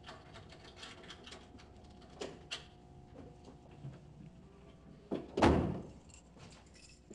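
Small clicks and taps of a picture frame being handled on a shelf, then a door shutting with a loud thud about five seconds in.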